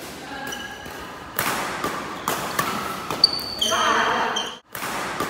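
Badminton doubles rally: sharp racket strikes on the shuttlecock, the sharpest a little over three seconds in during a jump smash, with sneakers squeaking on the court floor and players' voices. The sound drops out briefly near the end.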